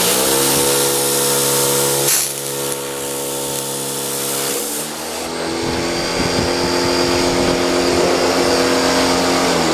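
Pressure washer running, its motor drone under the hiss of the water spray blasting a foam polishing pad. About halfway through, the motor's pitch drops a little and the spray hiss eases.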